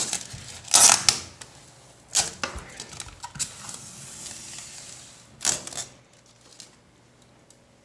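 Protective plastic film being peeled and pulled off a stainless steel range hood, crinkling and rustling in several loud bursts with softer crackling between them, then stopping about six seconds in.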